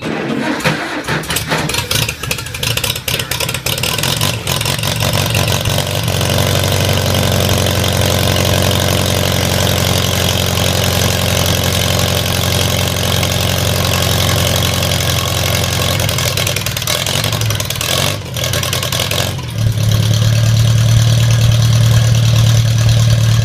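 Farmall Cub four-cylinder flathead engine, fired by a freshly fitted Pertronix Ignitor electronic ignition, starting and running ragged for the first few seconds, then settling into a steady idle. About 18 seconds in it dips and stumbles, then picks up again, louder, which the owner puts down to stale gas.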